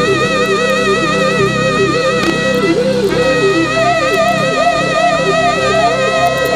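Church band music playing under prayer: a long held note with steady vibrato over a quick-moving keyboard line and sustained low chords. The held note breaks off about three seconds in and comes back.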